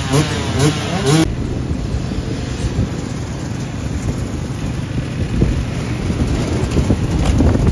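Enduro motorcycle engines revved in quick repeated blips, the pitch rising and falling, cut off suddenly about a second in; then a steady rumble of a group of dirt bikes riding past, with wind on the microphone.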